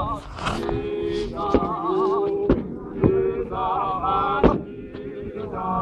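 Zion Christian Church Mokhukhu men's group chanting in unison, holding long wavering notes, with several heavy boot stamps on bare earth about a second apart.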